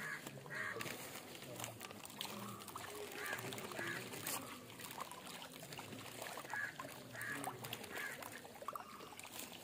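Fish rising to feed on puffed rice at the water surface: many small plops, smacks and splashes, faint.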